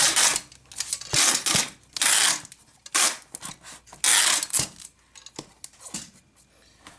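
Tape being pulled off a roll and wrapped around a package, in several short rasping strips during the first five seconds, then quieter handling.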